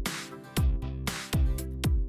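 Upbeat electronic background music with a steady kick-drum beat, about three beats in two seconds.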